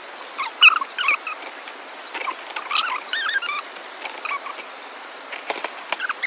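Small animal's high, squeaky chirps, coming irregularly, with a quick trill about three seconds in.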